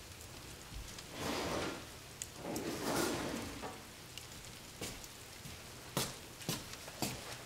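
Wood fire in a fireplace crackling: two brief hissing rushes in the first half, then a few sharp, separate pops in the second half.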